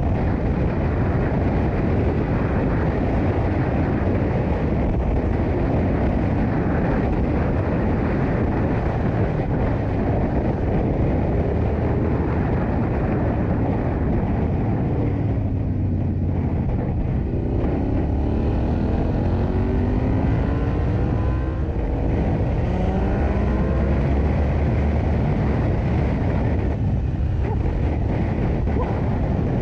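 Motorcycle riding at speed, the Yamaha Ténéré 700's parallel-twin engine under heavy wind rumble on the microphone. In the middle stretch the engine pitch climbs several times in a row as the bike accelerates up through the gears.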